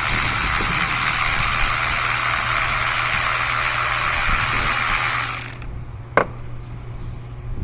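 Cordless electric ratchet spinning a spark plug out of the cylinder head with a steady whir for about five seconds, then stopping; a single sharp click follows shortly after.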